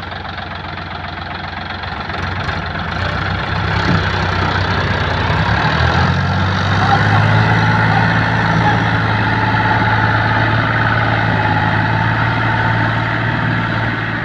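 Diesel tractor engines working under load as a Powertrac Euro 50 tows a Sonalika DI 50 with its rotavator out of the mud. The engine note grows louder about two seconds in, then runs loud and steady.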